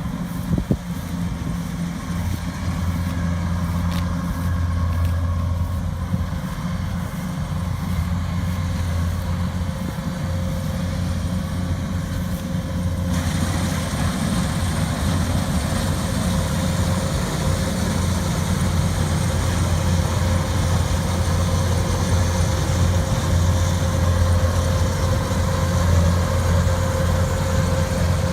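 Rice combine harvester's engine running steadily at constant speed, a continuous low hum with a faint steady whine above it.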